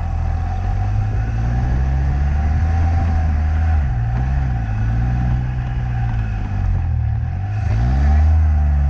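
Open two-seater car's engine driving up a grassy trials hill, heard close from the scuttle. The engine note dips about four seconds in and again near seven seconds, then climbs and is loudest shortly before the end, as the throttle is worked.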